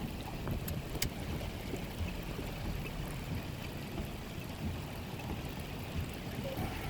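Steady rushing noise of rain and wind in a thunderstorm, with a few faint ticks in the first second.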